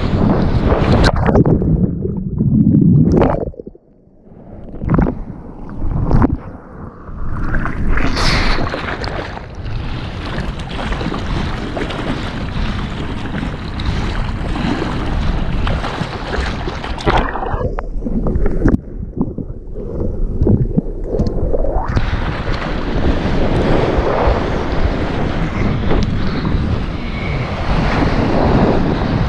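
Water rushing and splashing around a surfboard riding a breaking wave, with wind buffeting the microphone. The hiss drops out briefly about four seconds in and thins for a few seconds past the middle before the rush of whitewater returns.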